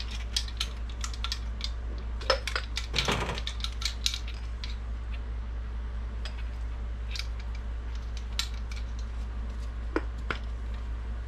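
Plastic measuring spoons clicking against each other on their ring and scraping in a glass spice jar as dry mustard is scooped out: a run of light clicks, a short scrape about three seconds in, then a few scattered taps. A steady low hum runs underneath.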